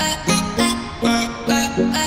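Background music: an instrumental with a quick, even rhythm of short notes.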